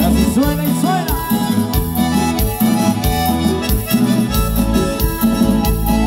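Live band playing a chilena: a reedy harmonica lead with notes bending in pitch about a second in, over keyboard, electric bass and a steady drum beat.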